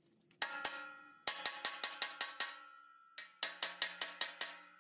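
Hammer blows on a steel pallet rack upright, each strike ringing with a clear metallic tone: two single blows, then two quick runs of about eight strikes at roughly six a second, beating the collapsed pad of the leg back toward flat.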